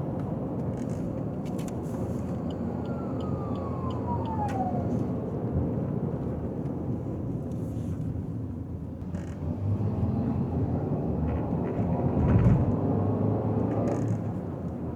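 Steady road and tyre noise of a car driving on a highway, with a brief falling tone a few seconds in and a louder swell about ten to thirteen seconds in.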